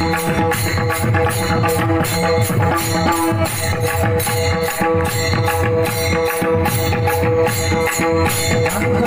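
Devotional music: a chant-like song over a steady, even beat of jingling percussion.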